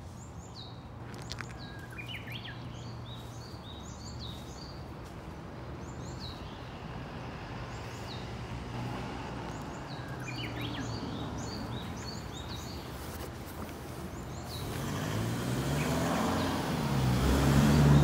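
Small songbirds chirping with short, high repeated notes, over a low steady traffic hum. In the last few seconds a motor vehicle comes close and passes, growing loud enough to drown the birds.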